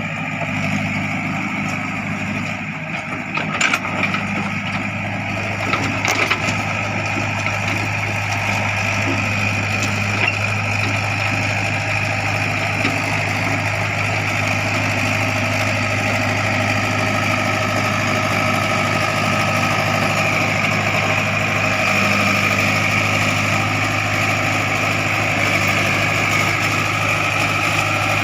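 Heavy diesel engine of construction machinery running steadily, with a few sharp knocks a few seconds in.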